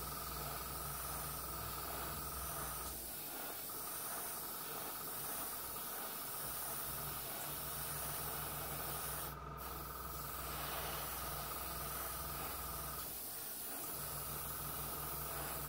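Airbrush spraying in a steady hiss as gray paint goes over a hairspray chipping layer on a test card. A low hum sits underneath and cuts out briefly twice.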